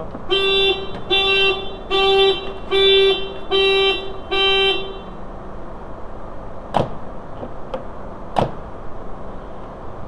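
VW New Beetle's anti-theft alarm going off, sounding the car's horn in six even honks, a little more than one a second, then stopping. The alarm is triggered by opening the door while the car is locked and armed, which shows the alarm works. Two sharp knocks follow a couple of seconds later.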